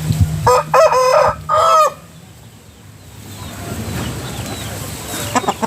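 Vietnamese game rooster (gà nòi) crowing once, a loud call of about a second and a half in several pitched segments, with a shorter call near the end.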